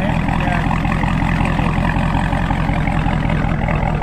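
Dodge Charger Scat Pack's 392 HEMI V8 running steadily with a loud, deep rumble.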